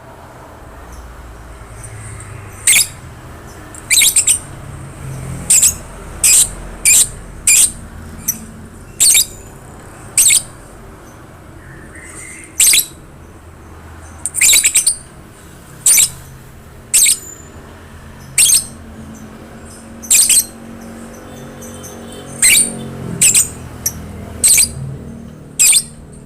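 Lovebird giving short, shrill squawking calls, about twenty of them, roughly one a second at uneven spacing, over a faint low hum.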